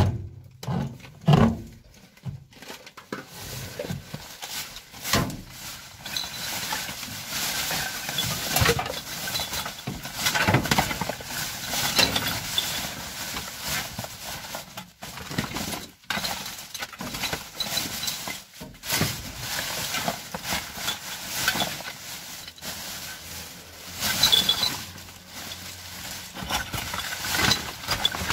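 Black plastic bin bags rustling and crinkling, and cables and other junk shifting, as a hand rummages through a rubbish container. Irregular, with occasional sharper knocks and clinks.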